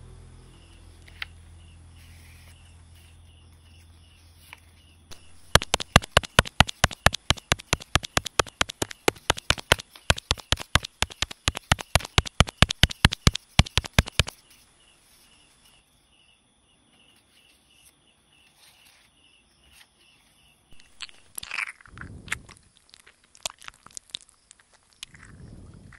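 A pestle pounds in a mortar, as for papaya salad: a fast, even run of knocks, about five a second, that starts about five seconds in and stops about nine seconds later. Near the end come a few crunchy rustles as the salad is scooped out.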